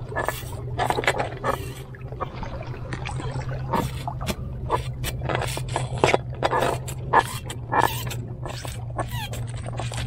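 Repeated scraping and clicking of stones and gravel as an inflated pufferfish is held down and worked with metal fishing pliers, over a steady low hum.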